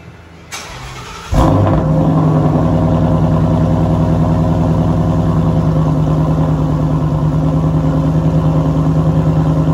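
Ford Mustang GT's 5.0 L V8 through long-tube headers and a Ford Racing by Borla cat-back exhaust, starting up about a second in and settling into a steady, loud idle with a rapid even pulse.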